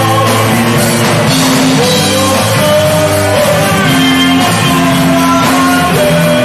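Rock band playing live: electric guitars, bass and drums, with singing.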